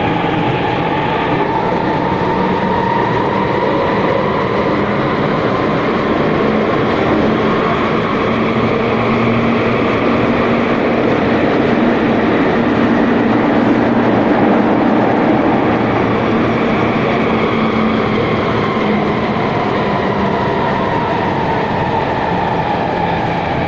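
Athens metro train running through a tunnel, heard from inside the carriage: steady loud rumble and rail noise with a whining tone that rises a little over the first few seconds, holds, and falls back near the end.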